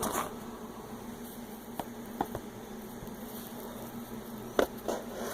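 A large folding knife cutting into a small cardboard box: a few faint clicks and scrapes, over a steady low hum.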